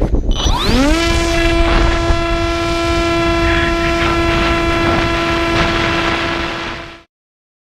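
Electric motor and propeller of a Skywalker FPV plane spinning up, its whine rising in pitch during the first second, then holding one steady pitch over wind rush. The sound cuts off abruptly near the end.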